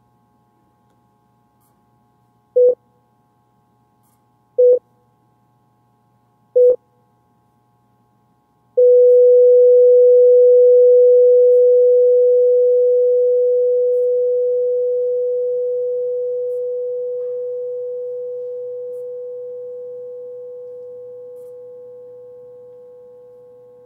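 Electronic sine-wave beeps: three short beeps about two seconds apart, then a long held tone at the same pitch that slowly fades away.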